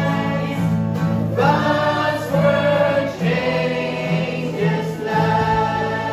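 A small mixed choir of men and women singing a hymn together in long held notes.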